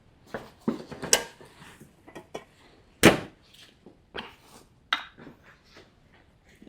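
Irregular clicks, knocks and short scrapes of hand tools and metal parts handled on an air compressor regulator being worked on by hand, with the loudest knock about three seconds in.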